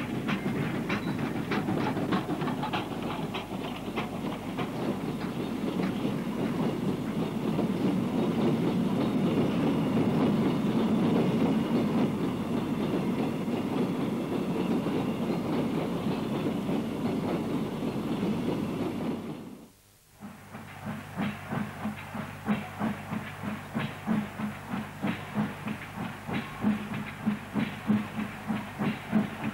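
Coal hopper wagons rolling past close by, a steady rumble with many clicks from the wheels and rail joints. After a brief break, a South Maitland Railways 10 class 2-8-2 steam tank engine is working a coal train, its exhaust chuffing about twice a second.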